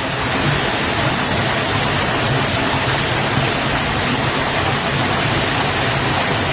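Torrential rain pouring down, a loud, dense and steady hiss of water.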